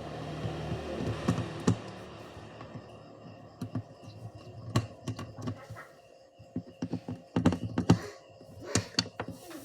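Typing on a laptop keyboard: irregular clicks and taps, coming thicker near the end, over a low hum that fades out in the first few seconds.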